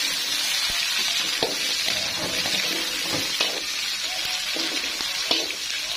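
Whole bird's-eye chilies, red chilies, garlic and shallots sizzling steadily in hot oil in an aluminium wok, with the short scrapes and taps of a metal spatula stirring them against the pan.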